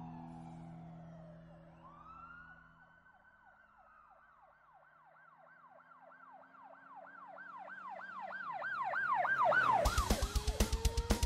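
Background music: a siren-like synth tone swoops up and down, faster and louder as it goes, and a fast, driving drum beat kicks in near the end.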